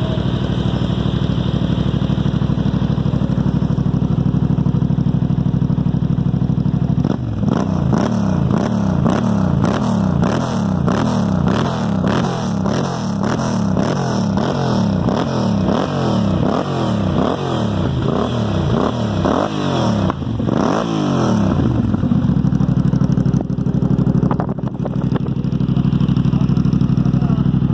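Yamaha motorcycle engine through a twin aftermarket exhaust, idling steadily, then blipped repeatedly in a quick series of revs from about seven seconds in, before dropping back to a steady idle a little past the twenty-second mark.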